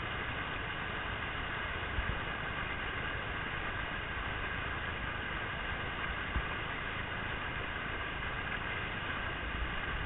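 Steady rushing of whitewater from a large river standing wave, with a few brief low thumps.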